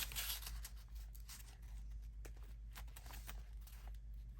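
Faint handling of paper on a desk: light rustles and scattered soft taps as a paper piece is moved about, over a steady low hum.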